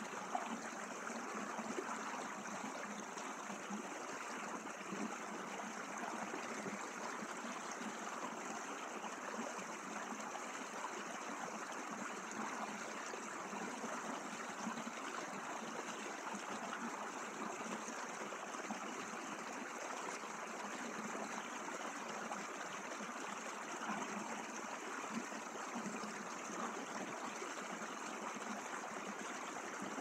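Small forest stream running steadily, its water trickling with an even, unbroken rush.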